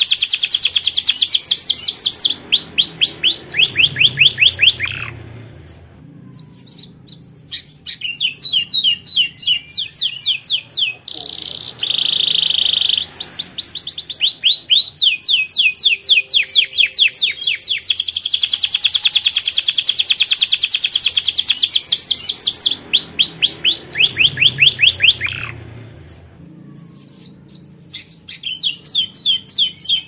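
Domestic canary singing: long runs of rapid, evenly repeated trilled notes, with a short held whistle about twelve seconds in and two brief pauses.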